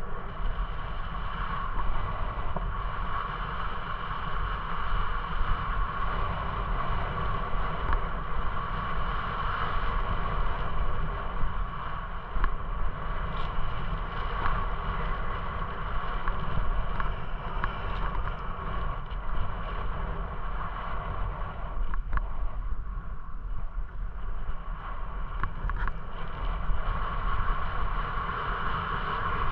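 Steady wind rush on the microphone and a low rumble of tyres rolling on a paved path, from a camera riding along on a bicycle, with a steady mid-pitched hum running underneath.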